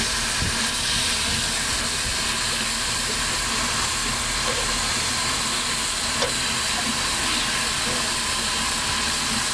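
Steady hiss of steam from a standing NGG16 Garratt steam locomotive, with wind buffeting the microphone and a single sharp click about six seconds in.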